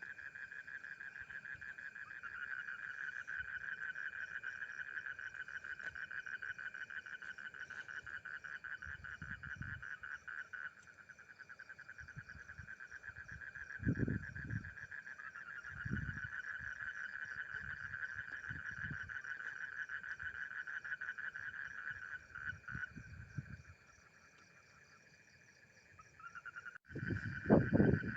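A frog's strange-sounding call: a long, rapid, buzzing trill that holds one pitch and keeps going for many seconds. It breaks off briefly twice. A few low thumps come in between, the loudest near the end.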